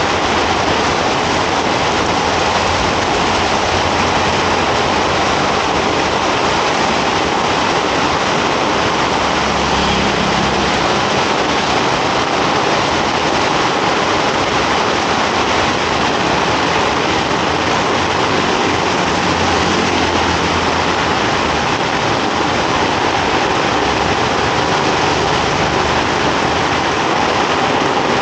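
Heavy rain falling steadily on a wet street, a dense even hiss. A vehicle engine rumbles low beneath it briefly about ten seconds in and again around twenty seconds.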